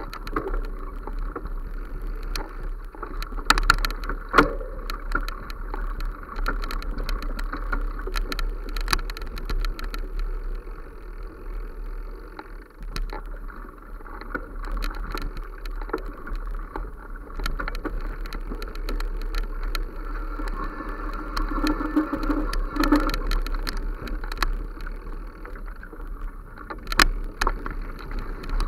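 Continuous wind rumble and rustling on the microphone with many irregular small clicks and knocks, from a camera travelling quickly along a dirt forest path. A slightly louder cluster of knocks comes about three to four seconds in and again near the end.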